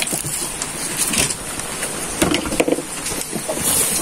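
Steady hiss of rain falling on a goat shed, with scattered knocks and rustles from goats feeding and shifting in their wooden slatted pen. A brief lower sound comes a little past halfway.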